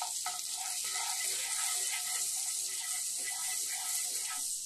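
Butter sizzling as it melts and foams in a hot nonstick frying pan, a steady hiss, with a wooden spatula stirring through it.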